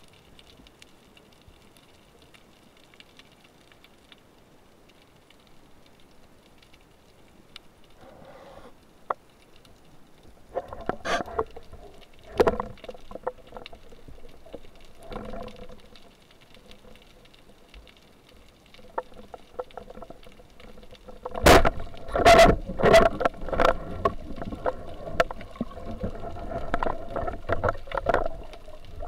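Underwater sound during a spearfishing dive: at first a faint steady hiss, then scattered knocks and bubbling. About two-thirds of the way in, a dense run of sharp clacks and bubbling begins, from the diver and his speargun moving in the water.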